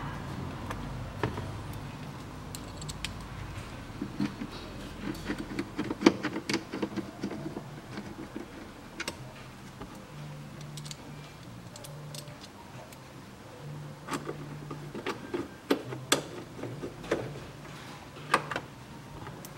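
Scattered light clicks and taps of a screwdriver and a plastic glovebox as the glovebox is screwed back into a car's dashboard with self-tapping screws.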